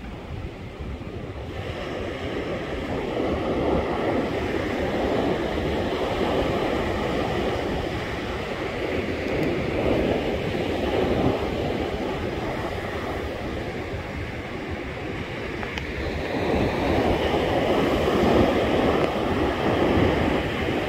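Ocean surf breaking on a sandy beach, a steady wash that swells louder three times as waves come in, with wind rumbling on the microphone.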